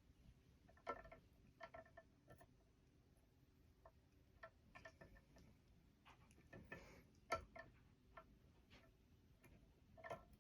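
Faint, irregular light clicks and taps of small tools and metal parts being handled while soldering a wire into connectors.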